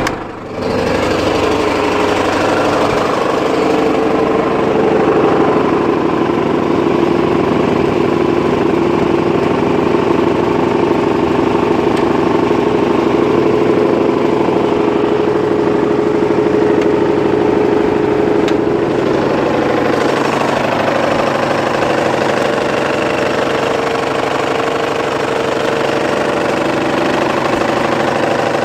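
Mitsubishi 4D56 four-cylinder diesel idling steadily with a knock, which the owner places around cylinder four; it appeared overnight after the engine had been running fine.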